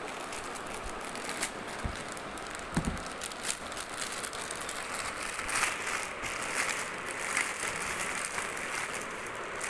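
Plastic courier mailer bag crinkling and rustling as it is cut open with scissors and handled, with many small crackles. There are two low thumps about two and three seconds in.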